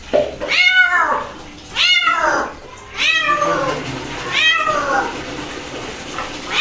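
Domestic cat meowing loudly and repeatedly in distress while being held down and bathed: about four drawn-out meows roughly a second and a half apart, each rising then falling in pitch.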